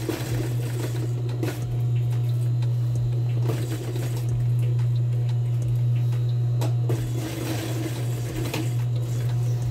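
Steady low hum of an industrial sewing machine's motor running, with a few short clicks and fabric rustling as the cloth is shifted under the presser foot.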